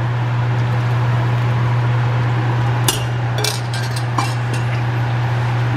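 Chicken stock poured through a small metal sieve into a pan of hot oil, sizzling and bubbling over a steady low hum. A few sharp metal clinks of utensils against the steel pans come about three to four seconds in.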